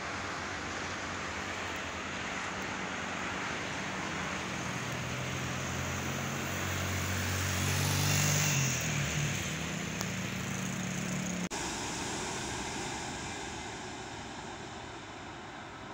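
A Jakarta–Bandung high-speed train passing on the viaduct: a rushing whoosh with a low hum. It swells to a peak about halfway through, the hum drops in pitch as it goes by, and then the sound cuts off abruptly to a quieter steady rush.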